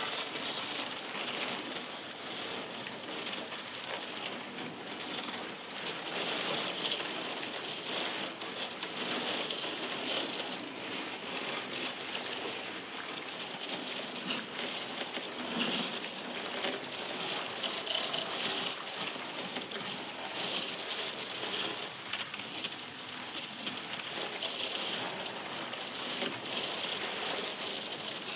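Dense, steady crackle of countless tiny clicks from a recording of thawing pond ice sheets cracking and breaking, reworked by computer into a continuous texture.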